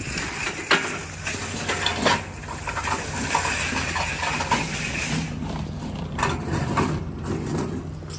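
Metal flatbed shop trolley being pulled from a row of parked trolleys and wheeled over concrete, its steel frame rattling and clinking, with several sharp knocks.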